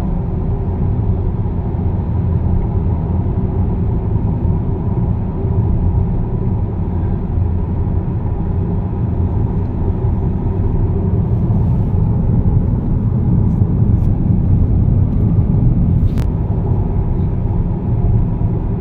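Steady low rumble of a car driving along a road, tyre and engine noise heard from inside the cabin, with a few faint clicks about two-thirds of the way through.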